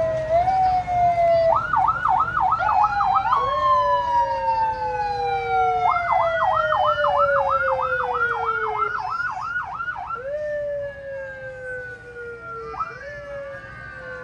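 Several emergency-vehicle sirens sounding at once, some in long falling wails and one switching to a fast warble of about three cycles a second, twice. The sirens grow fainter in the last few seconds.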